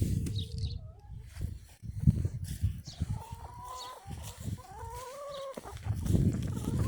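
Chickens clucking, with two drawn-out arching hen calls in the second half, over low bumps and rustling.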